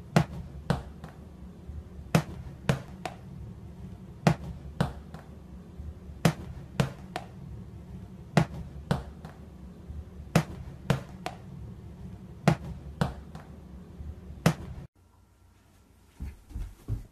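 A small ball bouncing on a hard tiled floor, in repeated sets of about three bounces roughly every two seconds. Near the end there are a few soft thumps, like footsteps on carpeted stairs.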